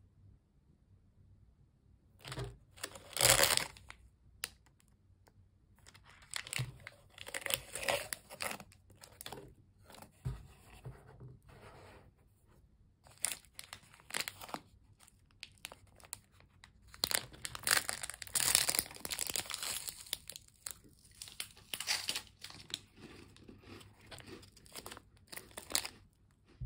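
Plastic candy and snack wrappers crinkling and being torn open by hand, in irregular bursts with short pauses; the loudest bursts come about three seconds in and over a longer stretch in the second half.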